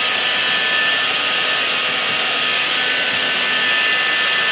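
Hair dryer blowing steadily with a faint motor whine, heating the wig glue so it sets and holds.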